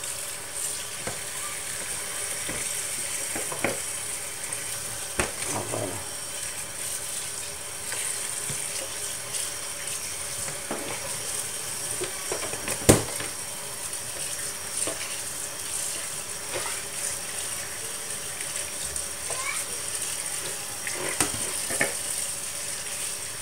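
Kitchen tap running a steady stream onto chopped leafy greens in a plastic colander, splashing through them as they are stirred with a wooden spoon. Scattered light knocks, with one sharp knock about thirteen seconds in.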